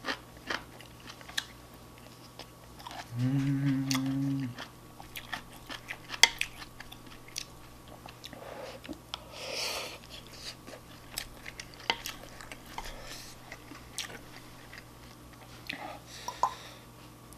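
Close-miked chewing of a mouthful of shrimp fried rice, with small clicks of chopsticks against the bowl. About three seconds in there is a low hummed "mmm" lasting over a second.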